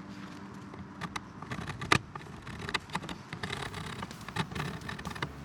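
Hand tools working small metal pieces, dressing their corners: irregular scraping strokes and light clicks, with one sharp knock about two seconds in.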